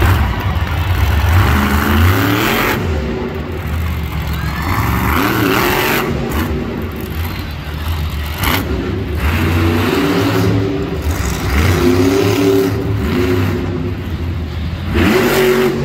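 Monster truck's supercharged V8 revving hard during a freestyle run, the engine pitch climbing and falling again about five times, loud throughout.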